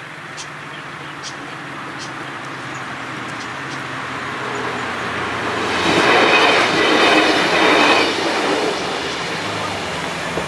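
Diesel regional railcar approaching and passing over a level crossing: rail noise growing steadily louder, loudest for about two and a half seconds as the train crosses, with a high ringing tone from the wheels on the rails, then fading.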